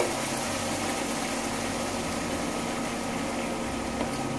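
Rice and freshly poured boiling water bubbling steadily in a pan on an induction hob, with the hob's steady hum underneath.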